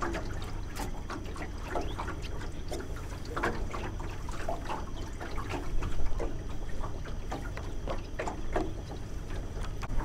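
Water splashing and trickling in irregular little gurgles over a steady low rumble.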